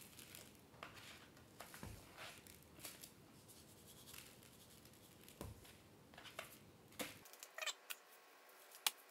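Faint handling noises: scattered light clicks and taps, with one sharper tick near the end.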